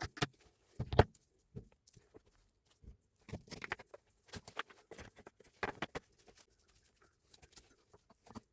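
Irregular clicks, taps and knocks of tool parts being handled during the repair of a Hilti TE 905 breaker, with the loudest knock about a second in.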